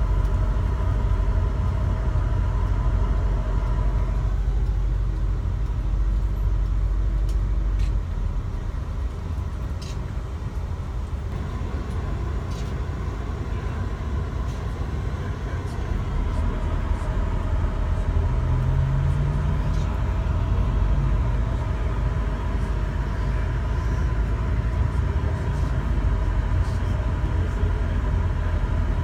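Steady road and engine rumble heard from inside a moving vehicle, with a faint hum above it that drops out for a few seconds and comes back.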